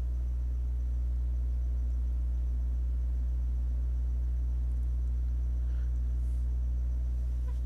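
Steady low electrical hum at an even level, with no other sound standing out above it.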